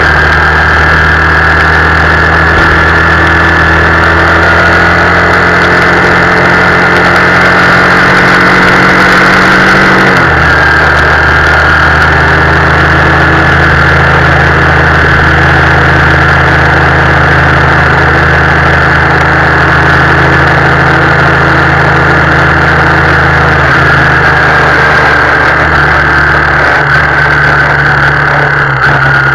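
Motorcycle engine running steadily while riding in heavy rain, its note changing abruptly about ten seconds in and again later, under a loud constant rush of wind and rain.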